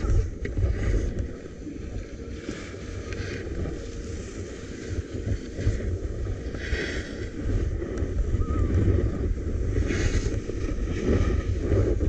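Wind buffeting the microphone of a camera carried by a snowboarder riding downhill: a steady low rumble. Over it, the board's edge scrapes over packed snow in several hissing swishes, the loudest just past halfway and near the end.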